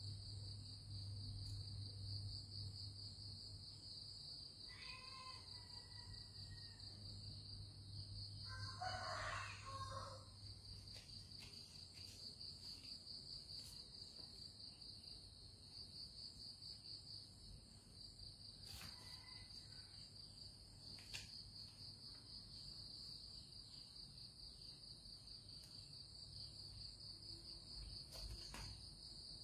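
Faint, steady, high-pitched chirring of crickets or other insects. A few short animal calls sound over it, about five, nine and nineteen seconds in, the one at nine seconds the loudest.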